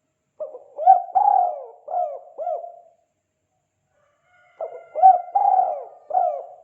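Spotted dove (tekukur) cooing its 'kuk 2' song: two phrases of about five short, bending coos each, the second starting about four seconds after the first.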